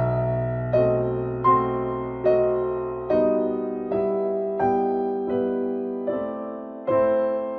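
Background music: slow, gentle piano, a note or chord struck about every three-quarters of a second and left to fade.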